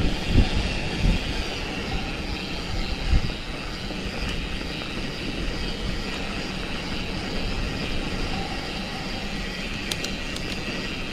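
Orbea Rallon mountain bike descending a dirt trail: a steady rush of tyre and wind noise, with a few low thumps from bumps in the first three seconds and some light clicks near the end.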